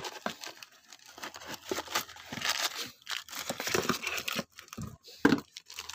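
Rustling and crinkling of a cardboard box and plastic packaging as parts are handled and a gasket set in its plastic bag is pulled out, in irregular scrapes and crackles.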